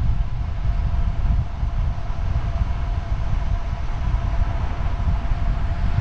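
Steady low wind rumble on the microphone of a camera on a moving road bike, with a faint, steady, high whine above it.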